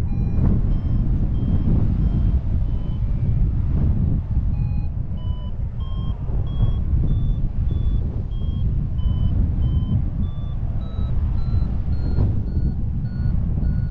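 Paragliding variometer beeping in short even tones, about two a second, its pitch stepping steadily higher from about four seconds in: the sign of a strengthening climb in lift. Under it, a loud wind rumble on the microphone.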